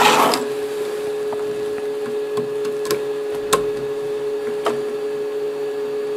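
A few faint clicks and knocks as a VGA cable plug is pushed into a motherboard's VGA port, over a steady hum.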